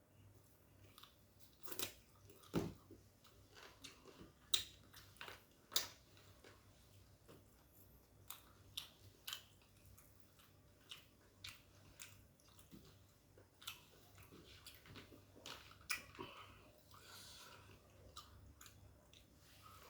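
Close-up chewing and mouth sounds of a person eating nasi padang, with irregular sharp clicks and smacks between quieter chewing.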